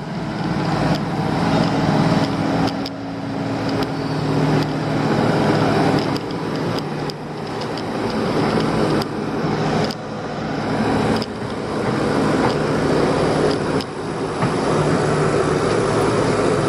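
Heavy diesel construction machinery running, with a dump truck pulling in; the engine noise swells and eases several times.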